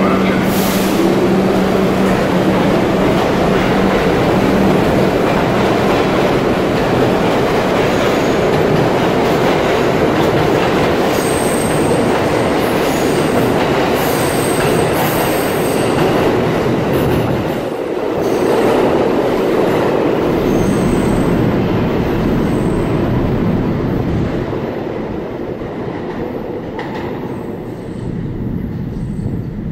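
Kawasaki R62 subway train pulling out of an underground station and accelerating past, with wheels clattering over the rail joints and squealing in bursts partway through. The noise fades over the last several seconds as the last cars leave.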